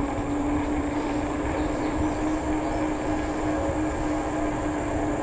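E-bike rolling along a paved path at about 15 mph, giving a steady hum of one even pitch over a fluttering low rumble of wind on the microphone.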